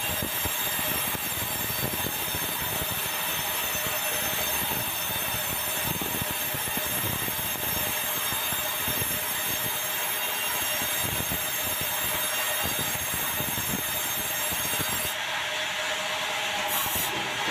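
Sawmill band saw cutting lengthwise through a hard, dry bengkirai (yellow balau) log: a steady sawing noise with a high ringing whine from the blade. Near the end the highest part of the whine drops away.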